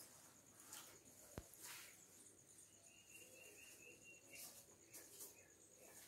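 Near silence: faint room tone with a few soft clicks and rustles, and a faint high tone lasting about a second and a half near the middle.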